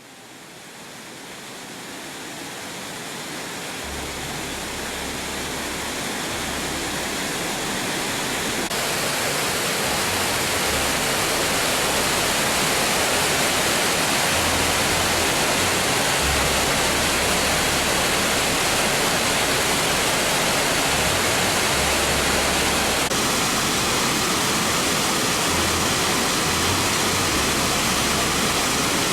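Steady rush of a waterfall's falling water, fading up over the first several seconds and then holding level.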